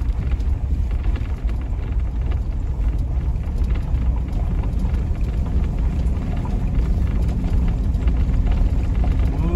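Van driving along a dirt and gravel road, heard from inside the cab: a steady low rumble of engine and tyres on the rough surface.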